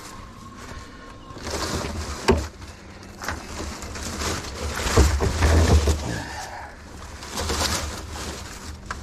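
Small hand pruning saw cutting through small tree stems, in irregular bouts with sharp cracks and rustling brush. Low rumbling handling or wind noise on the microphone comes and goes, loudest about halfway through.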